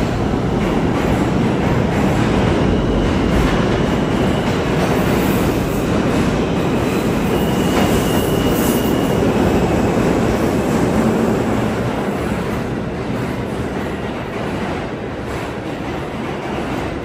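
R160 subway train pulling into the station and braking to a stop: a loud steady rumble of wheels on rail, with a brief high-pitched squeal about halfway through. The noise falls away over the last few seconds as the train comes to a halt.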